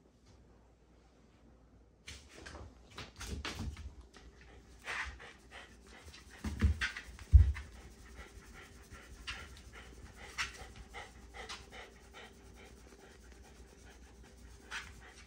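Shiba Inu panting rapidly, starting about two seconds in, with its fur rustling under a rubbing hand. A couple of low thumps about halfway through are the loudest sounds.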